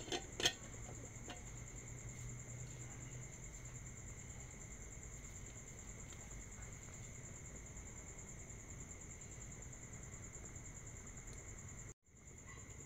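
Aluminium pot lid set down on the pot with two clanks about half a second apart, followed by crickets chirring steadily over a low hum.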